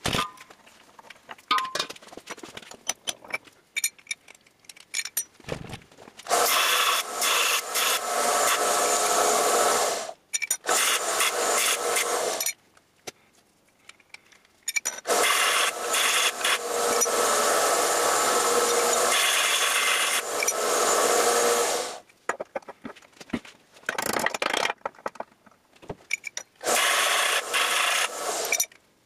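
Small bench belt sander grinding a black steel burner pipe held against the belt, in several runs of two to seven seconds with pauses between, and light handling clicks in the pauses.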